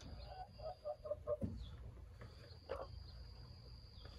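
Broody hen clucking softly: a quick run of short low clucks, then a few single clucks.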